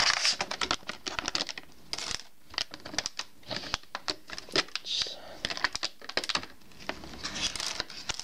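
Cheap plastic toy train track pieces clicking and knocking together as they are handled, with crinkling of plastic packaging: many quick, irregular clicks.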